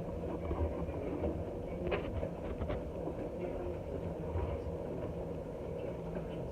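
LG TROMM WD-FR306DT 10 kg front-loading drum washing machine running its wash cycle, the drum turning the load. A steady low rumble with scattered light clicks and knocks, the clearest about two seconds in.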